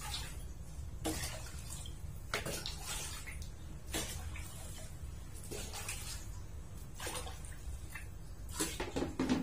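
Water poured into a stainless steel pot of raw rice in several separate pours, each a short splash about every second and a half, over a low steady rumble.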